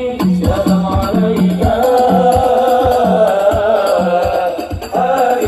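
Sholawat, an Islamic devotional song, sung over a steady drum beat of about two strokes a second. The voice holds a long, wavering note through the middle and drops briefly near the end.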